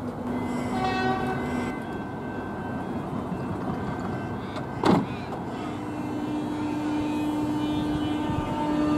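X'Trapolis electric suburban train at a platform giving off a steady electrical whine that sets in about halfway through, with a short sharp rising sweep just before it.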